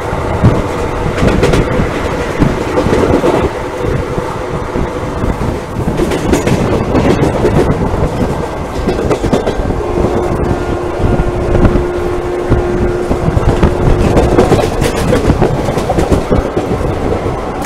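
Passenger express coach running at speed, heard from its open door: the wheels rumble and clatter on the rails, with the rush of passing air. Partway through, a steady whine sets in and holds for a few seconds.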